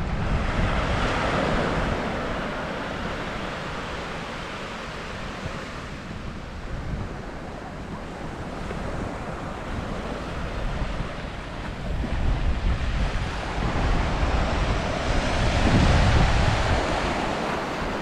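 Sea waves breaking and washing up the beach, swelling about a second in and again more strongly near the end. Gusts of wind buffet the microphone with a low rumble.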